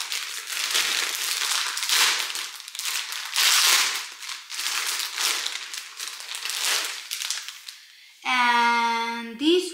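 Clear plastic bag crinkling and rustling in repeated bursts as a pair of rubber flip-flops is pulled out of it. The rustling stops about eight seconds in, and a voice holds a long note near the end.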